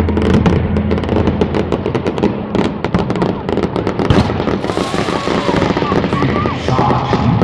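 Fireworks going off in a rapid, continuous crackle of many small pops close together.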